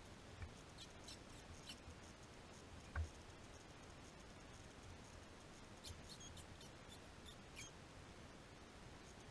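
Near silence: faint woodland ambience with scattered small, high-pitched ticks or chirps and one soft thump about three seconds in.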